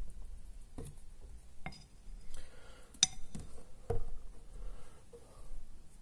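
A few light clicks and knocks, about one a second, from handling a plastic paint bottle with a flip cap and a paintbrush.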